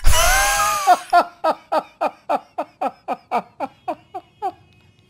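A man laughing in anguish: a loud drawn-out cry at the start, then a run of short, evenly spaced laughs, about four a second, that die away shortly before the end.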